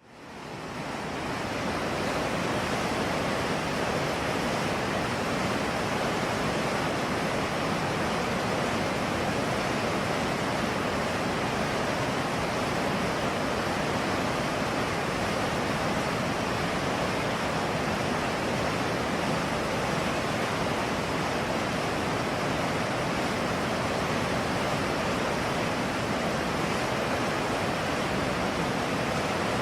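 Steady rush of the Trancura River's flowing water, an even hiss with no breaks, fading in over the first second or two.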